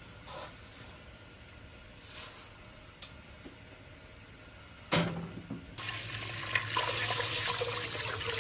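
Tap water running into a rice cooker's inner pot while a hand stirs and swishes the rice to wash it, starting about six seconds in. Before that it is mostly quiet, with a faint rustle of dry rice being poured and a sharp knock about five seconds in.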